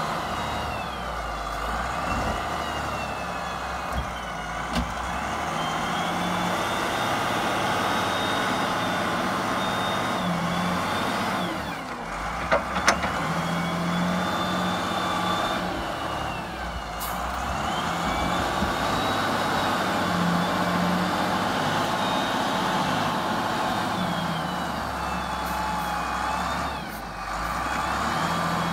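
Volvo BM 4500 wheel loader's diesel engine working hard under load while it digs and lifts overburden. The engine swells and eases several times as the bucket is worked, with a high whine gliding up and down over it. Two sharp knocks come about halfway through.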